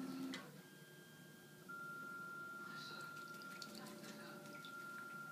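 Kakariki parakeets bathing in a shallow dish of water: wing-flapping splashes and drips, loudest right at the start, with scattered small splashes and flicks later on. A steady high tone comes in about two seconds in and holds.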